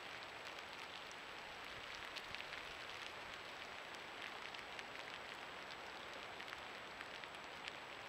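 Steady hiss from a trail camera's own microphone, with a faint steady high whine and many faint scattered ticks.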